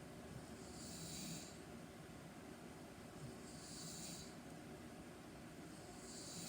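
A woman snoring in her sleep, with a breathy snore about every three seconds, three in all.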